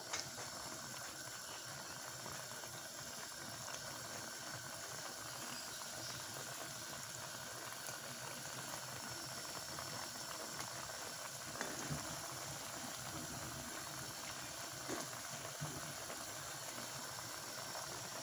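Adobo sauce simmering in a pan of chicken feet: a steady low bubbling, with a few faint pops or clicks in the second half.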